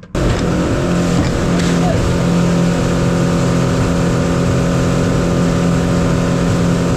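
Outboard motor on a small aluminium fishing boat running at planing speed: a steady engine drone under the rush of water from the wake.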